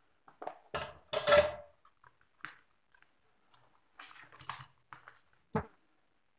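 Handling noise of a bare amplifier circuit board and a wire being moved about on a workbench: scattered knocks and rustling, with the loudest clatter about a second in and a sharp knock shortly before the end as the board is set down.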